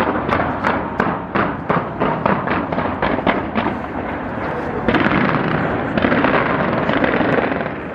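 Fireworks display: a quick run of sharp bangs, about three or four a second, then from about five seconds in a dense, continuous crackle.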